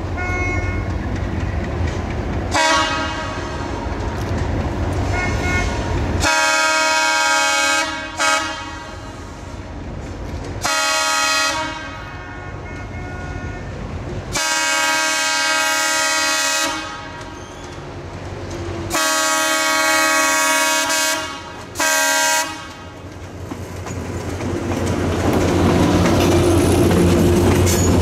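Horn of a former Southern Railway GE B23-7 diesel locomotive sounding a series of long and short blasts over the low rumble of the approaching train. Near the end the locomotives' diesel engines come up loud as they pass close by, with wheels clicking over the rail joints.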